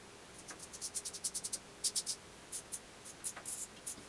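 Parker Variant adjustable safety razor scraping through lathered stubble in short strokes: a quick run of about ten scrapes in the first second and a half, then sparser pairs and small clusters.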